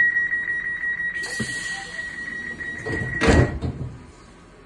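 Passenger train's door-closing warning: a high electronic beep pulsing rapidly, with an air hiss from about a second in. About three seconds in, the sliding door shuts with a loud thud and the beeping stops.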